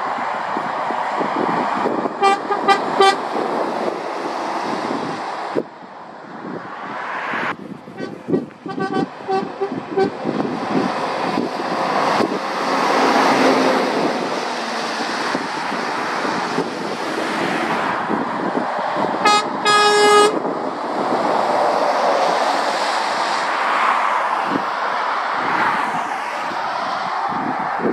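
Passing lorries, engines and tyres on the road, with horn toots: a quick series of short toots about two seconds in, fainter quick toots around eight to ten seconds, and two loud blasts around nineteen to twenty seconds.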